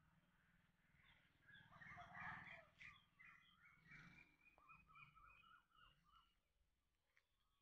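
Faint birdsong: small birds chirping, with a quick run of short, repeated falling notes in the second half.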